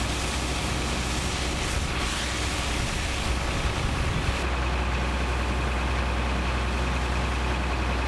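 A road vehicle's engine running steadily, a continuous low rumble with hiss above it. About halfway through, the hiss drops away and the low rumble gets stronger.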